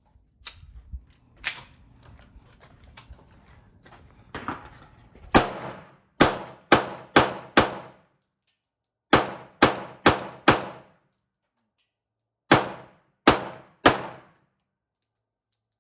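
Gunshots: a string of five fairly quick shots, a pause, four more, another pause, then three, each shot leaving a short ringing echo. Before them come a couple of sharp clacks and some handling noise from the gun being readied.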